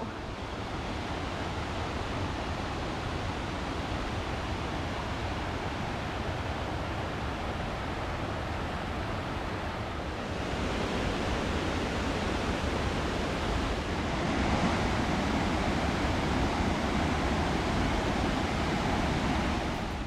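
White water of a rocky mountain river cascading over boulders, a steady rushing noise that grows somewhat louder about halfway through.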